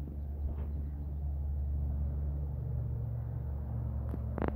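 A 2014 Harley-Davidson Dyna Street Bob's V-twin engine idling with a steady, deep rumble through a Basanni Road Rage 2-into-1 chrome exhaust, swelling slightly partway through. A brief scuff is heard near the end.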